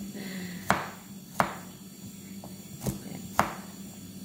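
Four sharp knocks, unevenly spaced, from hands handling food and utensils on a kitchen counter, over a steady low hum.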